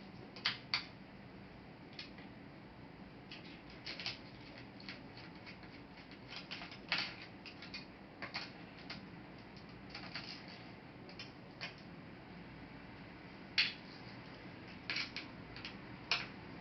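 Irregular small clicks and taps from a laptop being taken apart by hand: plastic parts and small tools being handled, some clicks coming in quick pairs, over a faint steady background hum.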